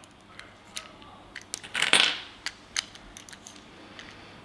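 Small metallic clicks and clinks of .30 JSB Exact lead pellets being handled and pressed into the chambers of an FX Boss 9-shot rotary magazine, with a louder rattle of pellets about two seconds in.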